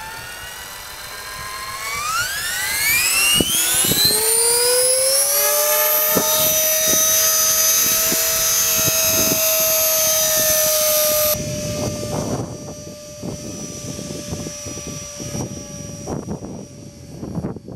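Esky Belt CPX electric RC helicopter's motor and rotor whine, rising steeply in pitch over a few seconds as it spools up and then holding a steady high pitch. About eleven seconds in the whine drops abruptly in level, and wind buffets the microphone in gusts while a fainter steady tone stays.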